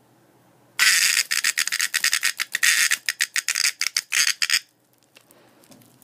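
A cicada giving a loud, raspy distress buzz while it is being handled, made of rapid pulses; it starts about a second in and cuts off after nearly four seconds.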